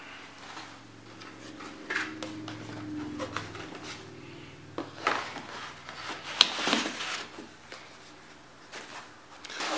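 A cardboard box and its packing being handled as the contents are taken out: scrapes, rustles and light knocks, busiest about five to seven seconds in and again at the end.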